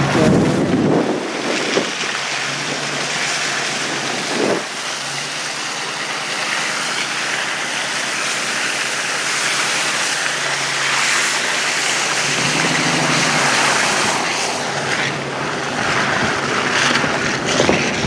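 4x4 truck driving slowly along a snowy, slushy logging road: a steady rush of tyres through snow and slush over a low engine note, with wind on the microphone.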